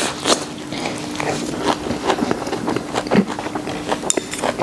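Chewing a mouthful of crisp raw napa cabbage dressed in sesame paste, close to the microphone: a run of irregular crunches.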